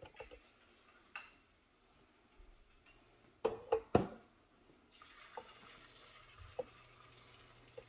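A few sharp knocks of spoon and bowl, the loudest just before halfway. Then, about five seconds in, a steady sizzle starts as a scoop of onion bhaji batter goes into hot frying oil.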